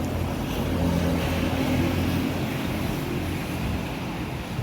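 An engine or motor running at a steady low hum, growing a little louder about a second in and easing off again.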